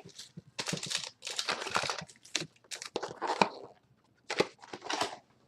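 Trading-card boxes and wrapped card packs rustling and crinkling as the packs are pulled out of their boxes. The rustling comes in irregular bursts, with a short pause about four seconds in.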